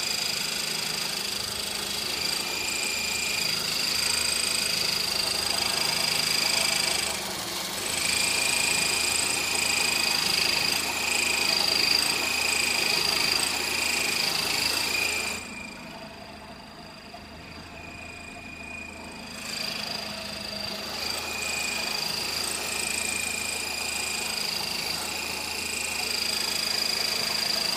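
Honda Civic engine running with a steady high-pitched "chirping" tone over it. The tone breaks off briefly about seven seconds in, then drops out for about four seconds midway while the whole sound gets quieter, and returns.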